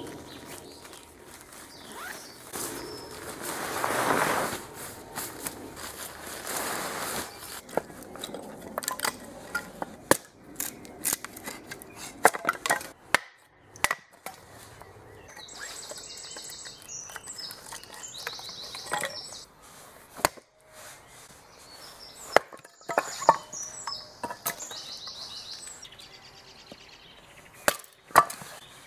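Wood being broken up for a campfire: a run of sharp cracks and knocks of sticks snapping and being chopped.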